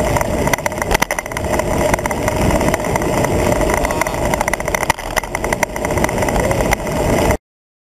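Wind buffeting and road rumble on a handlebar-mounted camera on a road bicycle moving at speed, with a constant fine rattle from the mount shaking over the path surface. The sound cuts off suddenly near the end.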